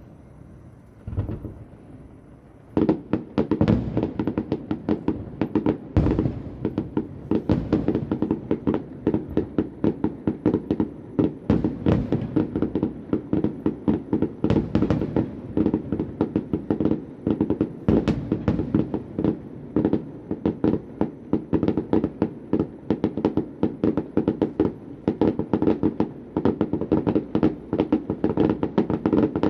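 Fireworks display heard from about a kilometre away: a single boom about a second in, then from about three seconds in a continuous rapid barrage of bangs and crackling shells.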